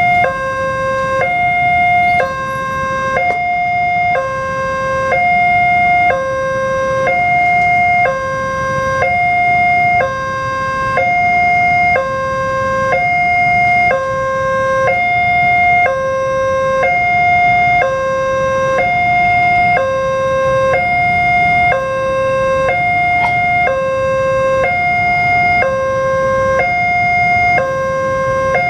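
Railway level-crossing alarm sounding from its loudspeaker: an electronic two-tone warning, a higher and a lower note alternating about once a second, warning that a train is approaching and the crossing is closed. A low rumble of waiting road traffic lies underneath.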